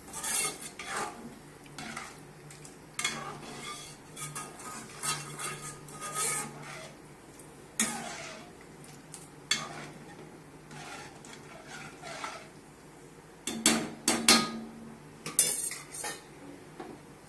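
Steel ladle stirring curry gravy in a metal pot, scraping and clinking against the sides at an uneven pace. Several louder, sharper knocks of metal on metal come near the end.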